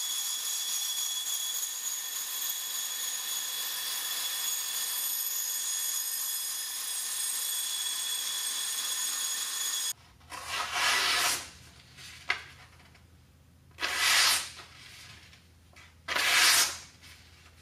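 Belt grinder running with a knife blade held against the moving belt under a coolant mist: a steady hiss with several thin high tones, which cuts off sharply about ten seconds in. Then three short rustles of paper being handled and pressed against the blade, and a single click.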